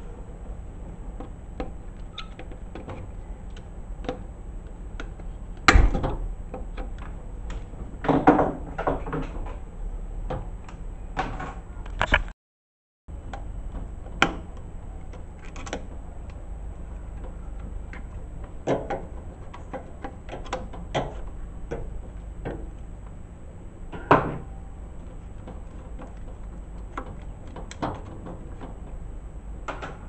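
Scattered clicks, scrapes and knocks of pliers and a screwdriver working on the white plastic housing of a washing machine's drain pump as its fitting and hoses are worked loose. A few louder knocks land about six, eight and twenty-four seconds in.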